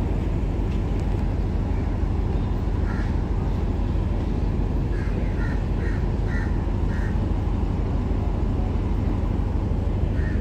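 Railway platform ambience: a steady low rumble, with short bird calls, one about three seconds in and a quick run of five or six a couple of seconds later.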